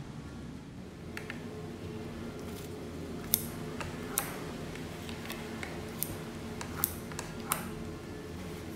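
Kitchen scissors cutting through a thin egg omelette topped with raw sliced onion, giving a series of sharp, irregular snips about a second apart.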